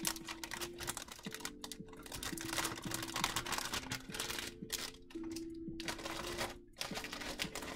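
Soft background music with long held notes, under a run of light clicks, taps and rustles from plastic sticker packs and clear packaging being handled and set down.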